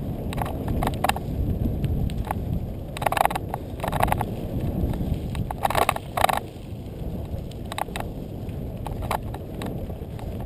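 Mountain bike rolling fast over a rough, rocky dirt trail: a steady low rumble of tyres and wind on the microphone, with sharp clattering rattles of the bike jolting over rocks, loudest around three and six seconds in.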